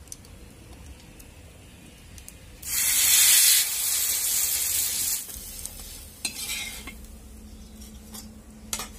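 A slice of bread coated in curd and gram-flour batter laid on a hot iron tawa, sizzling loudly as it touches down about three seconds in, then frying more softly and dying away.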